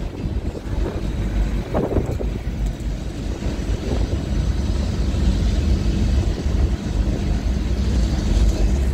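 Wind buffeting the microphone over the running rumble of an open-top Blackpool boat tram travelling at speed. The noise grows a little louder over the second half.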